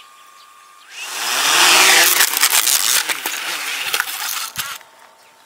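Quadcopter drone's electric motors and propellers spinning up with a rising whine about a second in, then a loud, rough buzz with repeated knocks and clatter as the drone crashes, stopping abruptly near the end.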